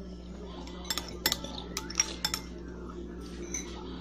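Metal spoon and fork clinking and scraping against a plate of noodles while eating, with a quick run of sharp clinks between about one and two and a half seconds in.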